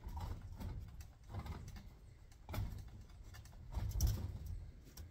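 Rex rabbits scrabbling and hopping about a wire-mesh cage: irregular clicking and rattling of claws on the wire, with a few dull thumps, the loudest about four seconds in.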